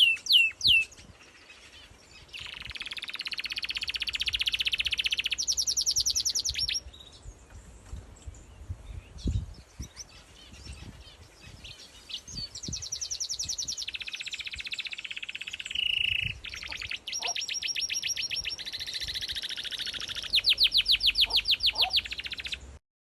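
Woodpecker calling: several long rattling series of rapid, evenly repeated notes, each lasting a few seconds, with a few quick chirps at the start.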